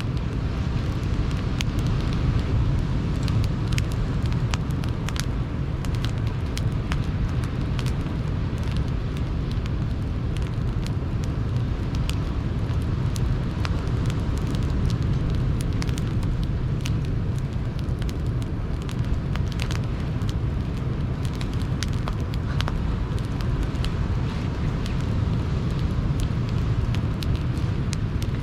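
Wood campfire crackling, with frequent sharp pops, over the steady low rumble of sea surf.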